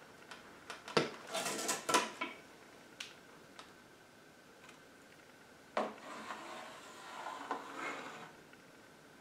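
Light clatter and knocks as a long box level is handled and laid across a plywood sheet, then a scratchy sound as a pencil draws a line along its edge.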